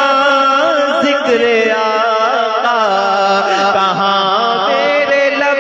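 Naat being sung: a drawn-out, melismatic vocal line whose pitch slides and bends in ornaments over a steady held drone.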